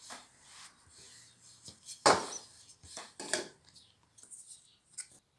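Wooden rolling pin rolling out dough on a wooden board: a few short scraping strokes and knocks, the loudest about two seconds in.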